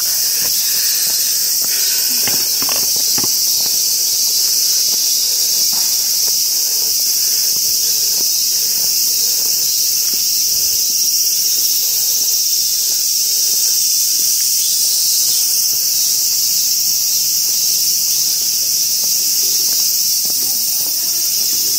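Loud, steady chorus of cicadas: a constant high-pitched drone that does not let up, with faint footsteps on the trail underneath.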